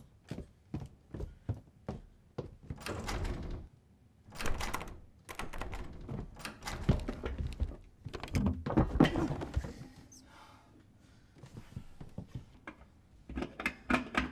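Irregular thuds and knocks in a small room, mixed with noisier handling sounds, as objects or doors are moved about.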